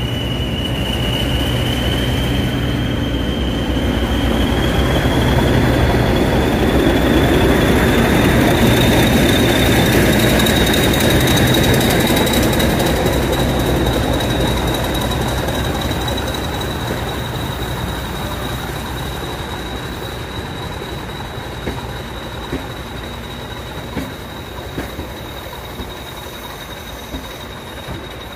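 Class 40 diesel locomotive D213 departing with its train, its English Electric engine running with a low hum that fades as it draws away, while the coach wheels give a steady high flange squeal that rises slightly in pitch. The sound swells as the coaches pass and then dies down, with a few wheel clicks near the end.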